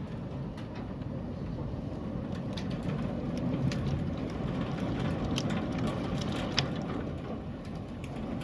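Heavy rain pouring down in a thunderstorm: a steady rushing noise scattered with many sharp ticks of drops striking, with one louder tick about six and a half seconds in.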